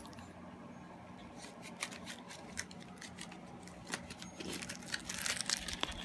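Faint crinkling and scattered small clicks of a cardboard box of roasted crickets being handled and tipped down onto carpet. The sound thickens into a brief crackle about five seconds in.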